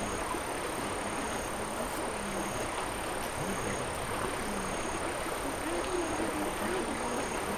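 Steady rushing of a small stream, with a constant high whine and a short high insect chirp repeating about once a second, and faint voices underneath.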